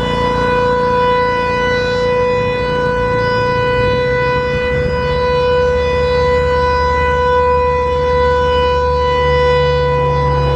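ASC Tempest T-121 eight-port omnidirectional mechanical warning siren sounding its steady Alert signal: one held pitch with a row of overtones, not rising or falling.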